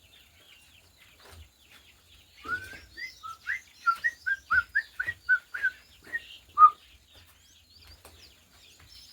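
A bird singing a quick series of about a dozen short rising notes for a few seconds, the last one the loudest, with fainter chirps from other birds around it.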